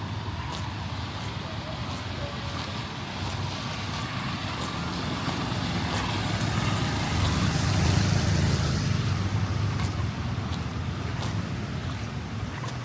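Street traffic on a wet, flooded road: a motor vehicle approaches and passes close, its engine rumble and tyre noise growing loudest about eight seconds in, then fading.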